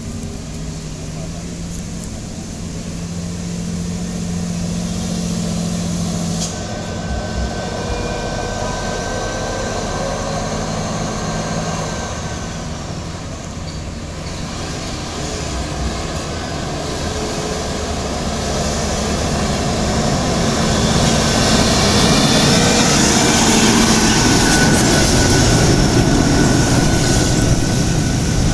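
Diesel engine of a sugarcane-laden truck running on a hill road, getting louder about two-thirds of the way in as the truck comes close, with a thin steady whine above the engine.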